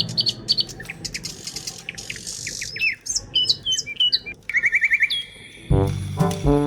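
Birds chirping and whistling, short sweeping notes and a quick trill of repeated notes, then music with low notes comes back in shortly before the end.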